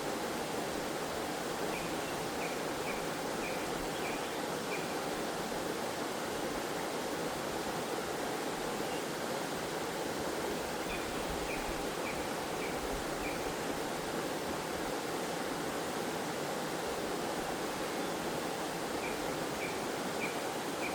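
Waterfall in a forest stream, a steady rush of falling and flowing water. Faint high chirps come over it in three short runs of four to seven notes: near the start, about halfway through, and near the end.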